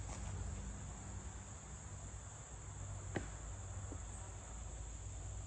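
Steady high-pitched chorus of crickets in summer woodland, with one short faint click about three seconds in.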